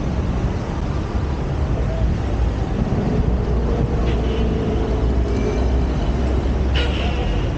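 Steady road-traffic noise: a continuous low rumble of cars and buses on the road below, with one vehicle's engine swelling through the middle. Brief higher sounds stand out about four and seven seconds in.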